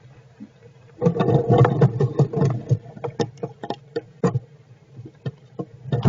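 Squirrels shifting about in their nest bedding: a loud stretch of scratchy rustling and clicking starts about a second in and lasts about two seconds, then there are scattered clicks, and it grows loud again near the end. A low steady hum runs underneath.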